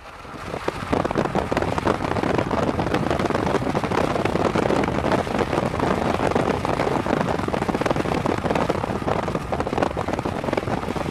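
Heavy rain pattering hard, a dense steady crackle that starts abruptly.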